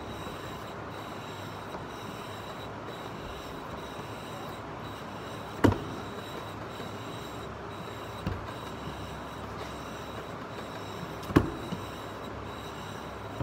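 Two whetstones grinding against each other: a tan stone rubbed back and forth over a brown King whetstone in steady strokes, a gritty scraping. Sharp knocks of the stones or holder come about six seconds in and again near the end.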